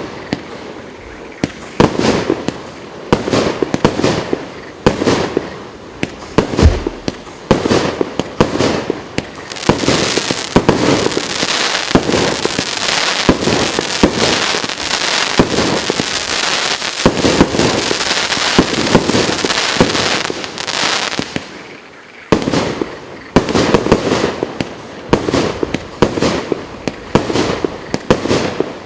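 COLOURED WORLD GWM6121 fireworks battery (cake) firing shot after shot in quick succession. From about ten to twenty seconds in, the shots merge into a continuous dense rush of noise. After a short lull at about twenty-two seconds, separate shots resume.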